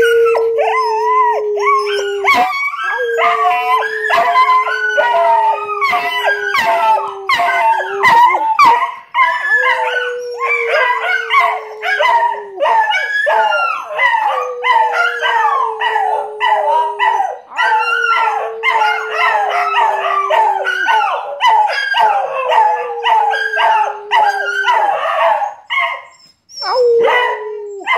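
Two dogs, a merle-and-white dog and a small black-and-tan dog, howling together: long, slightly falling howls repeated every few seconds, under a dense layer of higher, wavering howls and yips. There is a short lull near the end before the howling picks up again.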